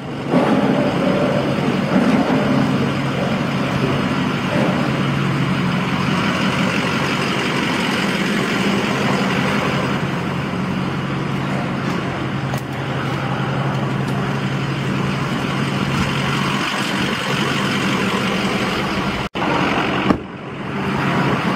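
A truck under way: its engine gives a steady low drone over even road and tyre noise. The sound cuts out for an instant near the end.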